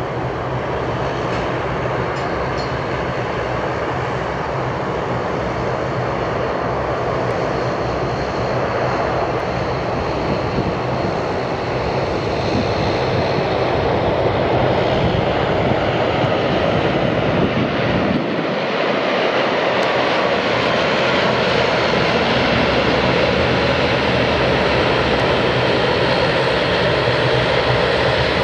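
Jet airliner engines running, a steady noise with a low hum that grows gradually louder.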